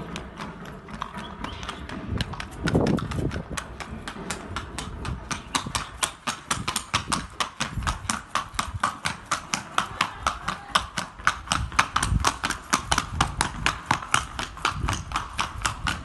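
Hoofbeats of a Colombian criollo stallion trotting on stone paving: a fast, even clip-clop of about five strikes a second, faint at first and growing louder over the first few seconds as the horse comes closer.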